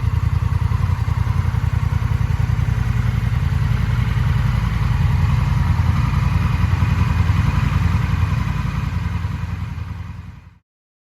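Honda Rebel 1100 DCT's parallel-twin engine idling steadily through an aftermarket Moriwaki silencer, with an even, pulsing exhaust note; the sound fades out near the end.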